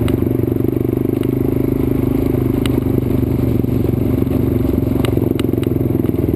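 Trail motorbike engine running at a steady pace while riding over a rough, rocky dirt road, with scattered sharp clicks and rattles from the loose stones and the bike.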